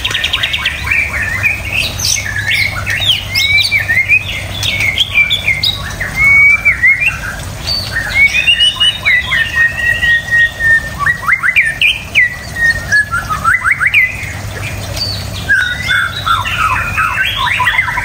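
White-rumped shama (murai batu) singing loudly: a varied, continuous run of whistled phrases with quick rising and falling notes and rapid trills, and one long held whistle about nine seconds in.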